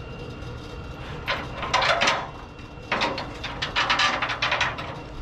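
Heavy rusty steel chain rattling and clinking as it is hauled hand over hand, in two bursts: a short one about a second in and a longer one from about three seconds in.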